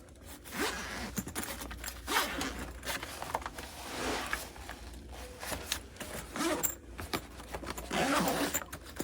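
Zippers on a backpack's lunchbox compartment being run along their tracks in a series of quick zip strokes, one after another.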